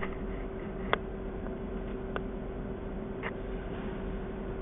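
Steady low rumble and hum of a stopped vehicle idling, heard inside its cabin, with three faint clicks about a second apart.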